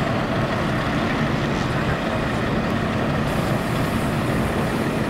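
Steady city street traffic noise: an Alstom Citadis light-rail tram pulling away from a stop, with a double-decker bus's engine running close by.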